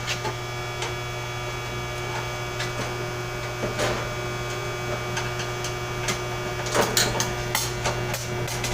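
Steady electrical mains hum, with a few light clicks and knocks of handling, a small cluster about seven seconds in.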